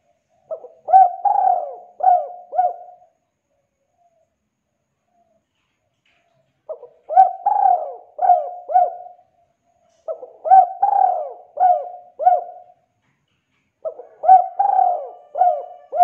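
Spotted dove (tekukur) cooing: four phrases a few seconds apart, each a short run of about five coos with one drawn-out, louder coo near its start.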